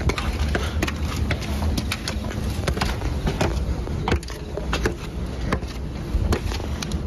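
People walking over rough ground, their footsteps crunching in quick irregular clicks over a steady low rumble on the microphone.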